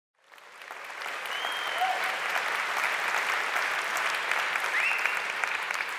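Audience applauding in a large hall, starting about a quarter second in and building over the first second to a steady level.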